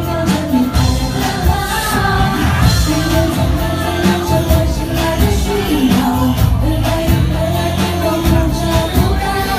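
Live pop song performed in a music restaurant: a singer over a band backing with a steady drum beat.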